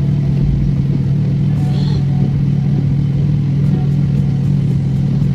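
Steady low hum of a parked car's engine idling, heard inside the closed cabin.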